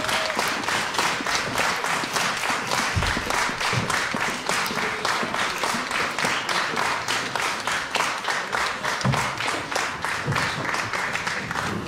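Large audience applauding, the clapping falling into a steady rhythm of about four claps a second, then dying away right at the end.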